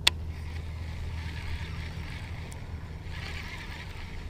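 Steady low wind rumble on the microphone and water sounds around a kayak, with a single sharp click right at the start.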